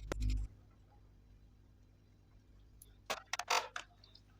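Handling noise: a low thump and click right at the start, then a quick run of clicks and a brief rustle about three seconds in.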